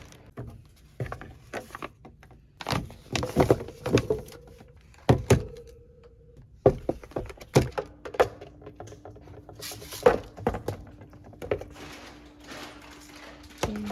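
Wooden and metal furniture parts knocking and clunking as they are handled and fitted together in flat-pack chair assembly, a series of separate thunks of uneven loudness. A faint steady hum runs underneath, dropping out for a while and returning about halfway through.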